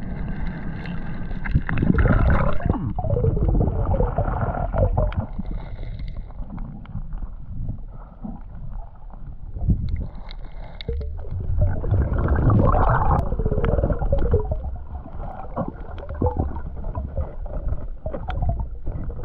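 Muffled underwater water sounds from a snorkelling diver: gurgling, bubbles and water movement, swelling louder a couple of seconds in and again in the second half.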